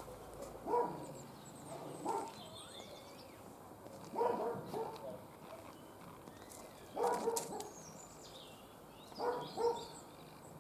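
Short barks or yelps from an animal, repeated in small groups every second or two, with birds chirping in the background.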